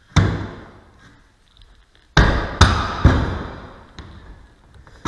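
Sharp knocks, each ringing out briefly: one near the start, then three in quick succession about two seconds in. They come from carriage bolts and the davit bracket being knocked into place through the mounting blocks.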